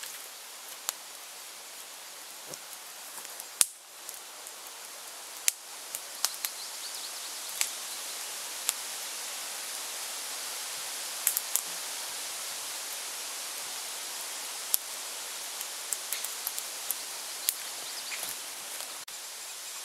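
Small wood campfire crackling, with scattered sharp pops and clicks over a steady hiss, along with rustling footsteps on dry forest-floor litter.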